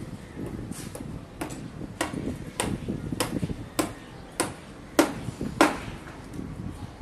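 Hammer blows on the timber formwork of a concrete column, a steady run of about nine strikes roughly two every second, the last two loudest.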